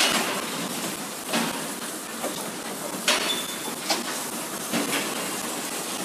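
Milking parlour equipment: several sharp metallic clanks and clicks as milking clusters and their fittings are handled against the steel stalls, over the steady hiss of the milking machine.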